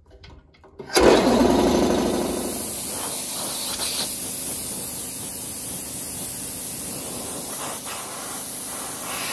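Random orbital sander switched on about a second in, then running steadily as it sands a pine desktop, with a loud, even hiss.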